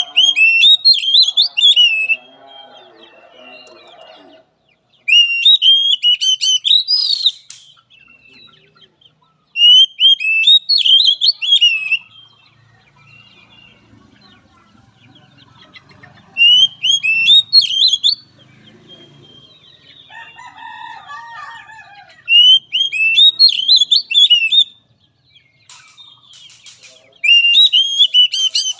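Oriental magpie-robin singing in loud bursts of about two seconds each, rapid high whistled notes sweeping up and down, repeated six times with pauses of about three seconds between them.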